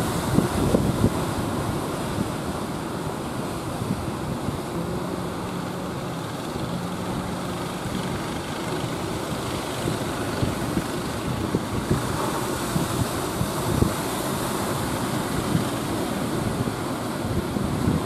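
Wind buffeting the microphone over the wash of breaking surf, with a fishing boat's engine running faintly underneath.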